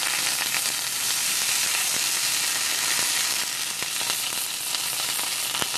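Monkeyhead mushroom steak frying in oil in a nonstick pan: a steady sizzle with scattered small crackles, while a slotted spatula presses it down.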